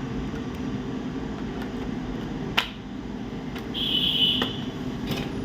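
Steady low hum with small clicks as a laptop hard disk is fitted to its connector, with one sharp click about two and a half seconds in. A brief high-pitched tone sounds about four seconds in.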